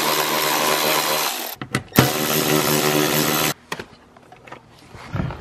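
Cordless ratchet's motor whining steadily as it spins a bolt out. It stops about a second and a half in, a few clicks follow, then it runs again for another second and a half and stops.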